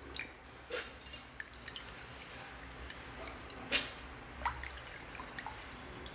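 Soaked rice scooped by hand out of a steel bowl of water: water dripping and splashing back into the bowl, with a few louder wet splashes, the loudest about three and a half seconds in.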